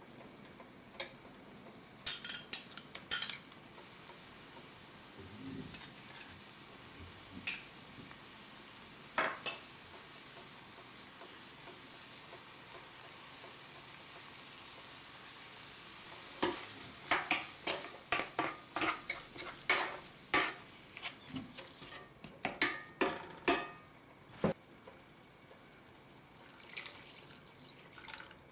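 Chopped vegetables sizzling in oil in a frying pan, with a utensil stirring and knocking against the pan: a few scattered knocks at first, then a quick run of them in the second half.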